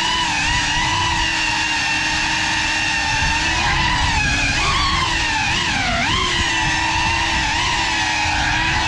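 Brushless motors and propellers of a 3.5-inch cinewhoop FPV drone whining steadily, the pitch dipping and rising several times about halfway through as the throttle changes.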